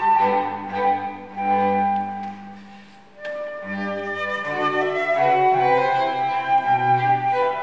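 Live chamber music from a transverse flute with violin, viola and cello. The sound thins to a brief pause about three seconds in, then the flute and strings come back in together.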